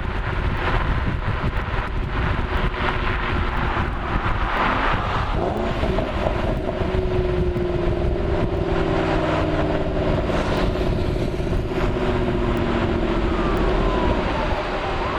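Ford Mustang Shelby GT500's supercharged V8 running under way, with a steady low rumble. Its pitch shifts about five seconds in, then falls slowly as the car eases off, with a scatter of sharp little pops from the exhaust.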